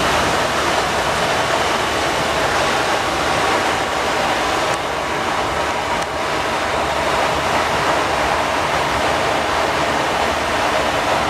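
Steady rushing noise with no clear tone or rhythm.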